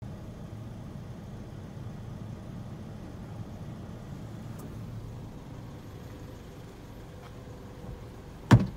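Mazda Titan Dash truck's engine idling with a steady low rumble. Near the end, a single sharp thump.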